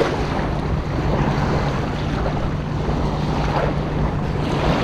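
Wind noise on the microphone over small waves at the water's edge, a steady rushing with a low hum underneath.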